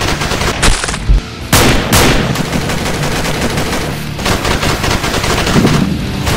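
Rapid automatic gunfire laid in as a film sound effect for airsoft rifles: fast bursts of shots, with two louder shots about one and a half seconds in.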